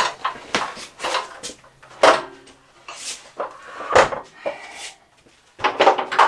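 Stepladder being handled and opened out: a series of sharp clanks and knocks, some with a brief metallic ring, about once or twice a second, with a short lull about five seconds in and a last cluster of knocks near the end.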